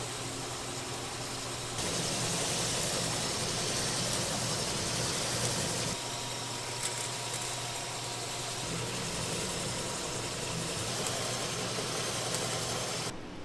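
Machine-shop machinery running, a steady mechanical hum with hiss. It gets louder about two seconds in, eases about six seconds in, and changes abruptly just before the end.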